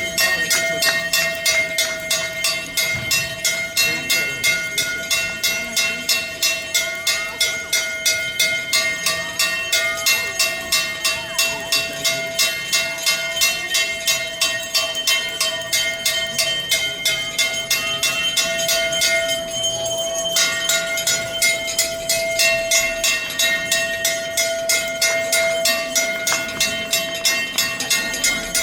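Temple bells ringing rhythmically for aarti, struck about three times a second at a steady even pace, with a sustained metallic ring between the strikes.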